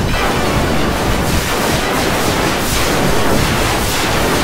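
A singer's song turned into a loud, steady wall of noise by stacking the 'G-Major' pitch-shift effect on itself over and over; no voice or melody can be made out.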